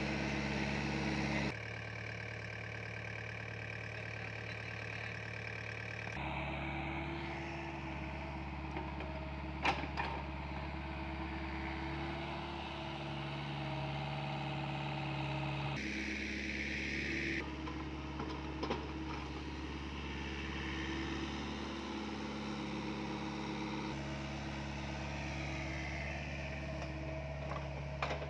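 SDLG mini excavator's diesel engine running steadily while it digs and moves soil, the note shifting abruptly a few times. Two short sharp clanks, about ten seconds in and again near twenty.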